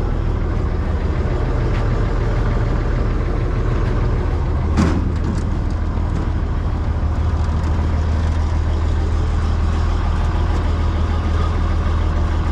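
SW 400 six-cylinder diesel engine of a Bizon combine harvester running steadily at idle, with a single brief knock about five seconds in.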